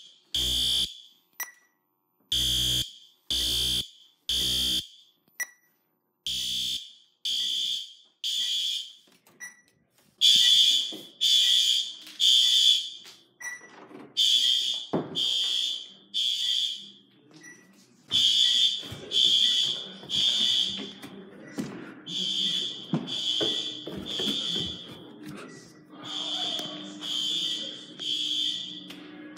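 A System Sensor SpectrAlert Advance fire alarm horn is sounding the temporal-three evacuation pattern: three high-pitched beeps, then a pause, repeating about every four seconds. It is loud throughout.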